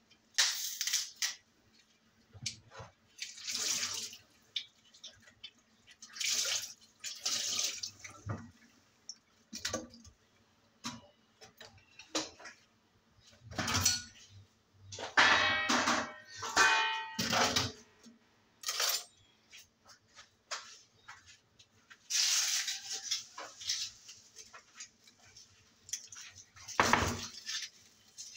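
Washing up at a kitchen sink: the tap runs in short spurts of splashing water, with dishes and utensils clattering and clinking in the middle, and a dull knock near the end.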